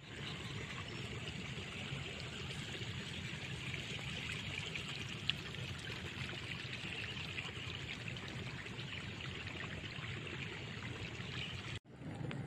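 Running water flowing steadily, breaking off abruptly near the end.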